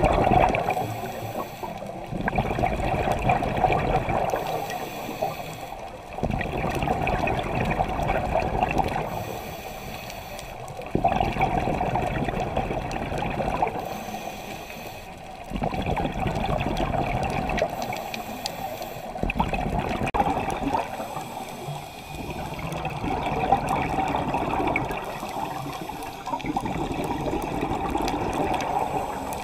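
A scuba diver breathing through a regulator underwater: the exhaled air rushes out as rumbling, gurgling bubbles, with quieter intake breaths in between, in a slow cycle about every five seconds.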